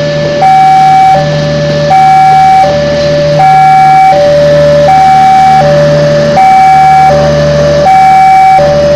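Railway level-crossing warning alarm sounding a two-tone hi-lo signal, the two tones alternating about every three quarters of a second, over the low rumble of a passenger train rolling through the crossing.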